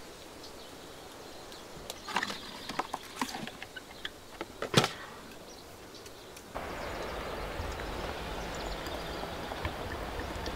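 A few scattered knocks and clicks, the loudest a single sharp one a little under halfway through, then an abrupt change to a steady rushing noise with a low rumble underneath.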